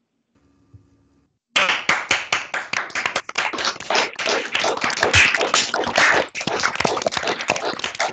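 Applause from several people clapping over a video call, their open microphones mixed together. It breaks out suddenly about a second and a half in, after near silence, and keeps up as dense, irregular claps.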